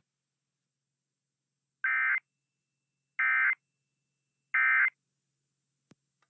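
Three short bursts of Emergency Alert System SAME digital data tone, the end-of-message code sent after a NOAA Weather Radio severe thunderstorm warning. Each burst is about a third of a second long, and they come roughly a second and a third apart, with a faint click near the end.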